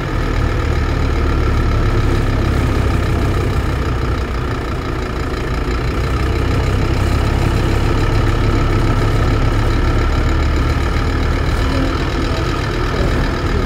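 Scania DC9-16-230 five-cylinder diesel engine of a Scania K230UB bus running steadily, a loud turbo whine held over the low engine note.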